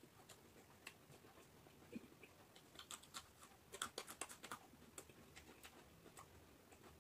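A person chewing raw vegetables, faint and close: scattered mouth clicks, then a run of crisp crunching bites about three to four and a half seconds in.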